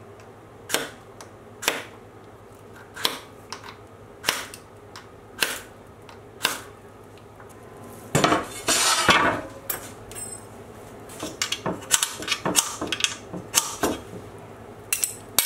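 A ferro rod fire starter being scraped with its metal striker and a steel knife blade to strike sparks. Single sharp scrapes come about a second apart, then a longer, denser scraping runs for about two seconds, and quick repeated strokes follow near the end.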